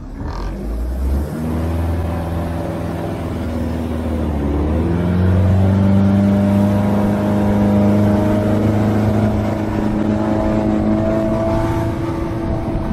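Sterndrive boat engine throttled up hard from idle, its pitch climbing, dipping briefly about four to five seconds in and then holding high and steady as the boat gets up on plane, over the rush of water from the hull and wake.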